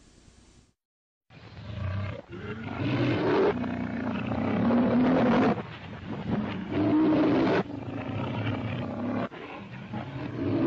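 Lion of the Metro-Goldwyn-Mayer logo roaring, a run of about six rough, low roars one after another, starting about a second in after a moment of dead silence.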